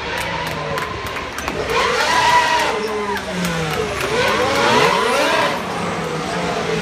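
Formula One cars' 1.6-litre turbocharged V6 engines accelerating past on the straight, their pitch climbing and then dropping as each car goes by.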